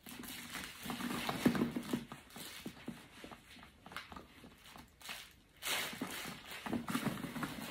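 Faint footsteps on a floor as a person walks about.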